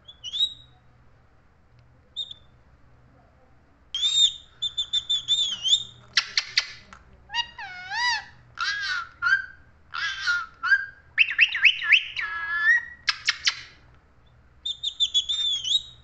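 Rose-ringed (Indian ringneck) parakeet vocalising: a couple of short chirps, then from about four seconds in a long run of high whistles and squeaky, speech-like gliding phrases, pausing briefly before more whistles near the end.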